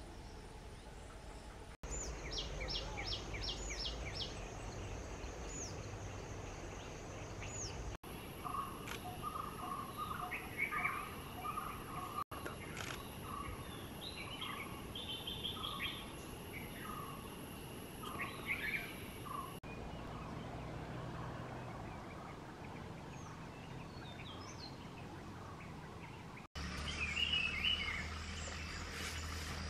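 Outdoor forest ambience with scattered bird chirps and calls, busiest in the middle stretch and again near the end. The background changes abruptly several times as the recording jumps between clips.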